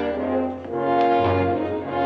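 Orchestral score led by brass, holding dramatic chords that change about half a second in and again about a second in.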